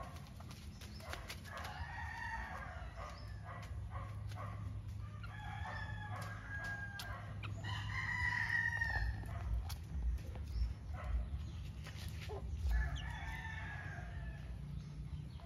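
Gamefowl calling: about four drawn-out calls a few seconds apart, with scattered light knocks.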